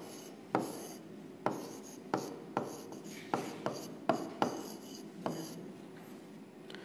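Stylus writing on the glass of an interactive touchscreen display: about ten sharp taps, each as a pen stroke lands, with a short scrape after each. The taps stop about a second and a half before the end.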